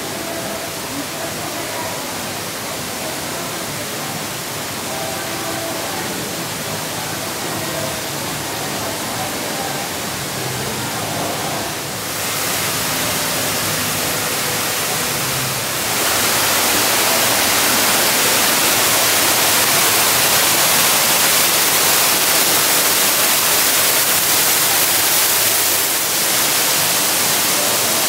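Steady rushing noise that gets louder in two steps, about twelve and sixteen seconds in, with faint voices beneath it in the first part.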